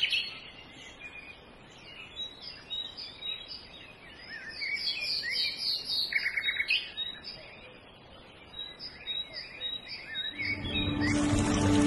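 Several birds calling, mostly short repeated chirps and whistles, with a brief buzzy trill about six seconds in. Music comes back in near the end.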